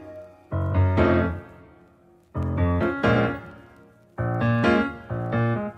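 Background music: groups of chords, each struck twice in quick succession over a bass note, fading almost to quiet before the next group starts about two seconds later.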